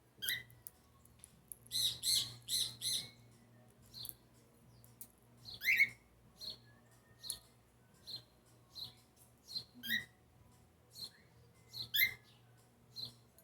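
A small animal giving short, high-pitched chirps at irregular intervals, with four in quick succession about two seconds in.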